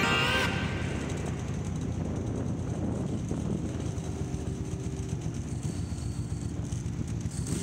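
Suzuki Intruder M1800R V-twin cruiser motorcycle engine running steadily on the move, with a low rumble and road and wind noise. Background music fades out in the first half second.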